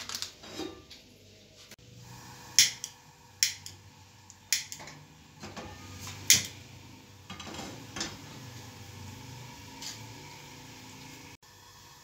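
Sharp metal clanks and clicks at a gas stove, a few spaced about a second apart, as a pan is handled on the burner grate, over a steady low hum that cuts off suddenly near the end.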